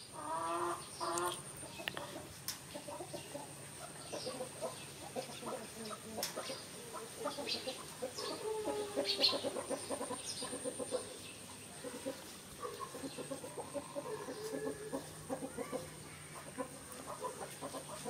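Chickens clucking, a run of short calls coming and going, over a steady high-pitched whine.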